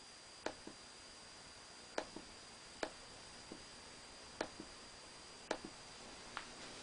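About a dozen faint, sharp computer clicks, several in quick pairs like a button pressed and released, spaced a second or so apart, over a faint steady high-pitched whine.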